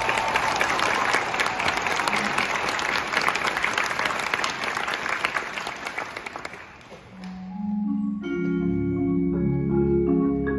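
Marching-band front ensemble of marimbas and other mallet percussion playing: a dense run of rapid mallet strokes that fades out about seven seconds in, then held low chords with higher notes on top.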